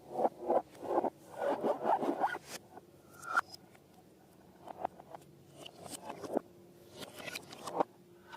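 Quick rubbing and scraping strokes from hands working balloons and slime, coming in a dense run at first. After about two and a half seconds they thin out to scattered clicks and light taps.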